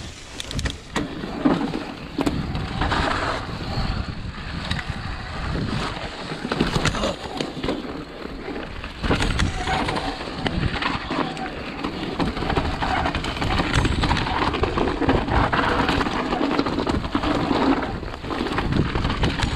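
Mountain bike riding down a rough trail: tyres rolling over dirt and rock with a constant clatter of knocks and rattles from the bike.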